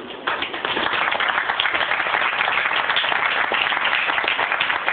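Audience applauding, a dense clatter of many hands clapping that breaks out suddenly just after the start.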